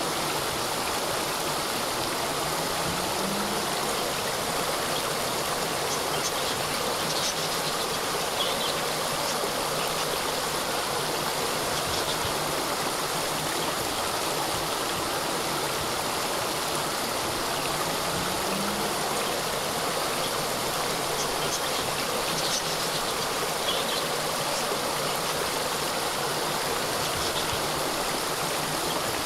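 Small waterfall: water splashing and rushing in a steady, unbroken stream.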